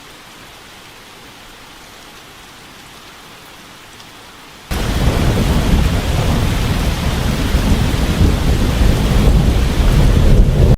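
Steady hiss of rain, then about halfway through a sudden switch to a much louder, deep rumbling roar of heavy rain and thunder that cuts off abruptly at the end.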